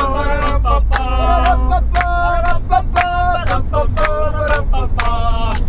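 Voices singing a Swahili song over sharp, regular beats, with a steady low rumble underneath.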